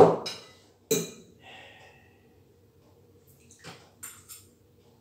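A ceramic bowl of spaghetti set down on a table with a sharp knock, then a fork clinking against the bowl about a second later. A few lighter fork clinks follow near the end as he eats.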